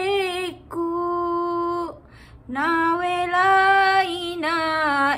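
A woman singing solo without accompaniment: a sad song sung in long held notes with a wavering vibrato, breaking off briefly for breath about two seconds in.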